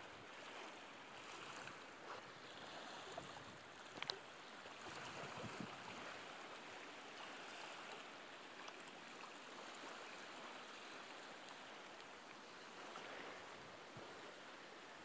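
Faint, steady wash of small lake waves lapping over a flat rocky shoreline, with a single sharp click about four seconds in.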